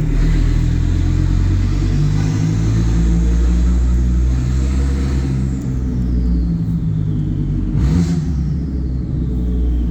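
Volvo C70's turbocharged five-cylinder engine through a 3-inch straight-pipe exhaust, a deep rumble under throttle with a high turbo whistle. About halfway through the whistle falls away in pitch, and near the end a short hiss is followed by another falling whistle.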